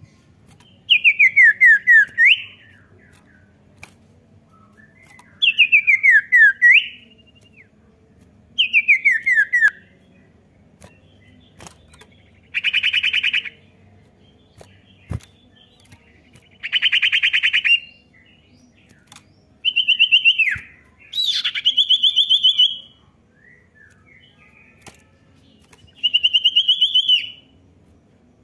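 Common iora singing in a series of about eight short phrases with pauses between them: quick falling trills, buzzy trilled notes and rising notes.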